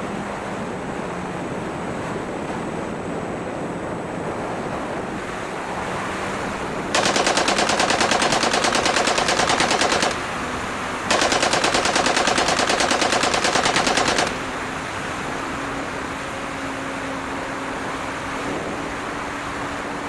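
Wind rushing past the onboard camera of an E-flite P-47 radio-control plane, with its electric motor and propeller humming underneath. About seven seconds in come two loud bursts of rapid simulated machine-gun fire, each about three seconds long, a second apart.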